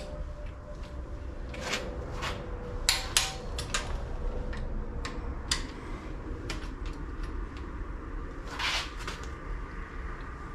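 Scattered metallic clicks and clinks of a torque wrench and socket on cylinder head bolts, being tightened to 40 lb-ft as a first pass. A longer scraping rattle about eight and a half seconds in.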